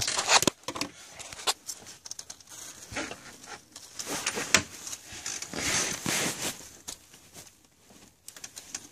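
Scattered clicks, scrapes and rustling of hands working in an engine bay, moving a wiring harness in corrugated plastic loom and handling parts.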